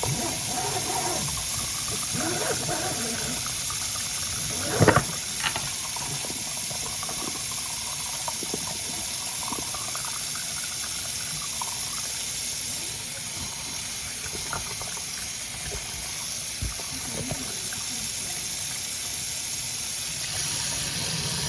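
Steady hiss of rushing water from high-pressure jetting of a kitchen drain pipe, with two sharp knocks about five seconds in.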